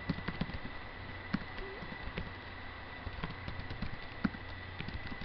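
Computer keyboard keys clicking in quick, irregular strokes as code is typed, over a faint steady high whine and low hum.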